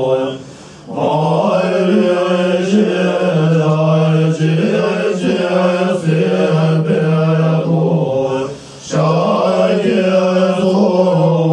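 Tibetan Buddhist monks chanting in unison on one low, steady held tone, rich in overtones, breaking twice to breathe.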